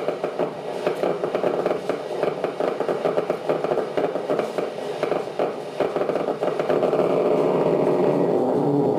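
Amplified single-cell recording from a mosquito antenna's smell-receptor neuron: a crackle of nerve-impulse spikes. From about seven seconds in the crackle grows denser and louder into a near-continuous buzz as the cell fires hard in response to odour blown over it.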